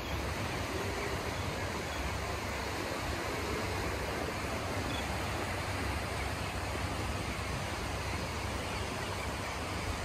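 Steady wind rumbling on a phone microphone over small waves washing onto a sandy beach.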